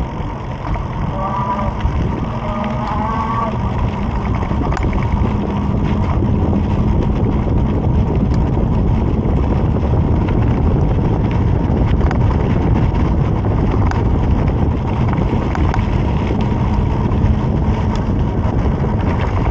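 Steady wind rumble on the microphone with tyre and road noise as the Raev Bullet e-bike is ridden.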